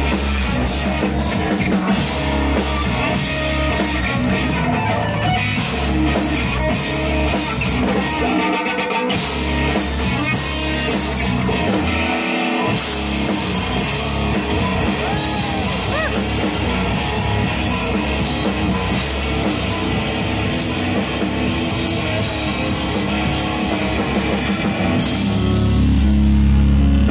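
Rock band playing live: electric guitar, bass guitar and drum kit, loud and heard from within the audience. The bass and drums cut out briefly twice in the first half, and the music grows louder and heavier near the end.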